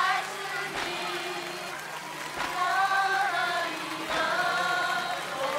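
Live pop-ballad band accompaniment in an instrumental passage: a slow, gliding melody line over a soft beat that falls about every second and a half to two seconds.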